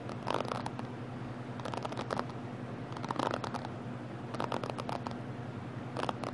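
Bristles of a paddle hairbrush brushed in short strokes close to the microphone, each stroke a rapid crackling scratch, about five strokes with brief gaps between.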